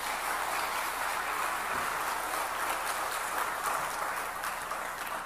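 Congregation applauding, a dense clatter of many hands clapping that holds steady and starts to fade near the end.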